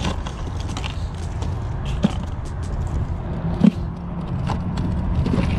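A steady low outdoor rumble, with scattered clicks and two short thumps as fish are handled and shifted about in a plastic cooler.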